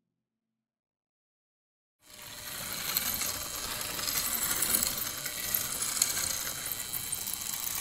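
Silence for about two seconds, then a dense, steady metallic clatter of rapid clicks and whirring starts: a sound effect of turning gears and ratchets.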